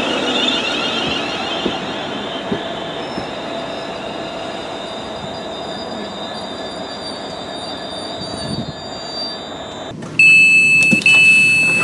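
London Northwestern Railway Class 350 Desiro electric train running slowly into the platform, with a high whine and a thin squeal from the wheels and brakes. About ten seconds in comes the loudest sound: a run of loud repeated door beeps from the train's passenger doors.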